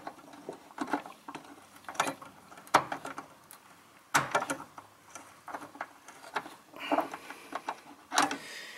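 Hands working a mounting nut onto the stud of a brake master cylinder: scattered light metallic clicks and taps at irregular intervals.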